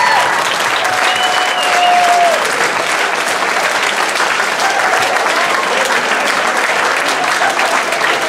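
Crowd of guests applauding, a dense steady clapping, with one long held cheer about a second in.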